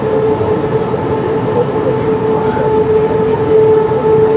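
Passenger train running on the rails, heard from aboard, a steady rumble with a constant whine held on one pitch over it.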